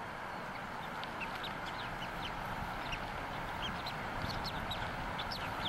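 Newly hatched bald eagle chick peeping: short, high chirps repeated irregularly, several a second at times, over a steady hiss.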